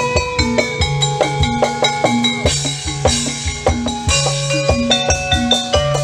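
Instrumental electronic pop music with a steady drum beat, a repeating bass line and short bright melody notes.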